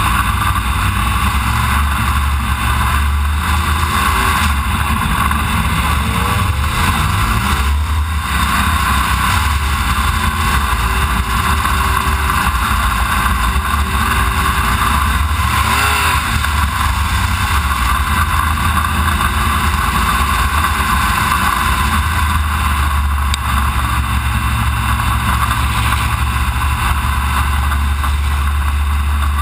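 B-Mod dirt-track race car's V8 engine running steadily at low revs while the car rolls slowly.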